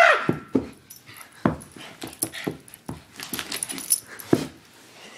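A small dog, a chug (pug–chihuahua mix), playing wildly, making short, sharp noises at uneven intervals, with the end of a high-pitched yelp right at the start.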